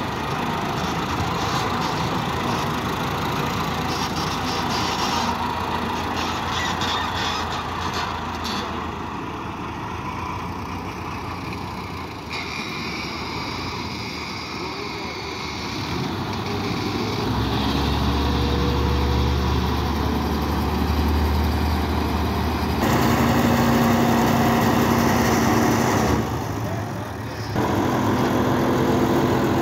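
Diesel engines of a front-loader tractor and a truck-mounted hydraulic hay baling press running steadily. A deeper steady hum joins about halfway through, and the sound briefly drops shortly before the end.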